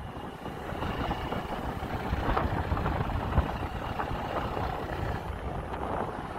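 Steady engine and road noise from a moving open vehicle, with wind rumbling on the microphone.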